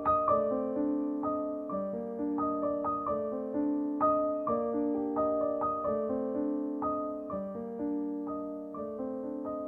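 Soft background piano music, a slow melody of single struck notes that ring and fade.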